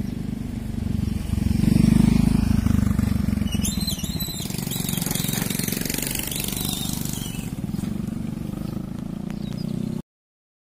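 Vehicle engine running steadily, louder about two seconds in, with a hiss swelling in the middle. The sound cuts off abruptly near the end.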